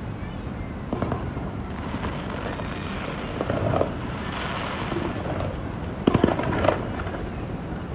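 Aerial fireworks going off: separate booming bursts about a second in and mid-way, a loud cluster of bangs near six seconds, and a crackling fizz between the bursts.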